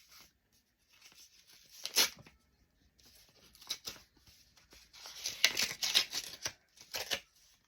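Paper or card being handled and torn in short, uneven rustles, a sharp tear about two seconds in and a quick run of them near the end, as a card or note is opened.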